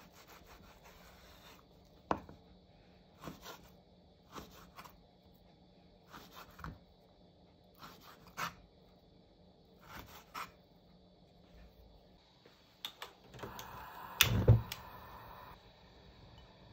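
Chef's knife cutting raw pork on a wooden cutting board: a knock of the blade through the meat onto the board about every second, often in pairs. Near the end comes a louder stretch of scraping with a few sharp knocks.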